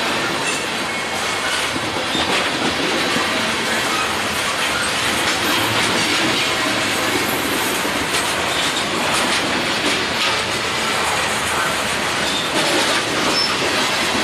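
Freight train of tank cars and covered hoppers rolling past at speed. Steel wheels make a steady rumble on the rail, with clicking over the rail joints and a few brief, faint wheel squeals.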